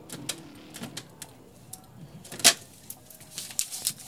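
A run of sharp clicks and knocks from a wall-mounted telephone being dialled and handled, with one louder knock about halfway through and a quick cluster of clicks near the end.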